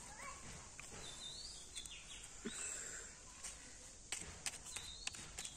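Outdoor ambience: a steady hiss with birds chirping now and then in short rising notes, and a few sharp clicks near the end.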